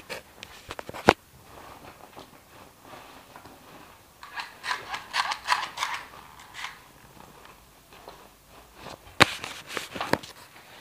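Sharp clicks and knocks, with a few seconds of scraping and rubbing in the middle and another cluster of knocks near the end.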